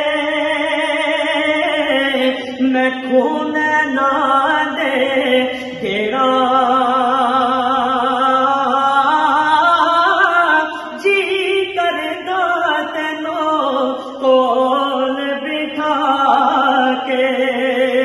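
A man's solo voice singing with no instruments, holding long notes and sliding through ornamented runs between them, with short pauses for breath.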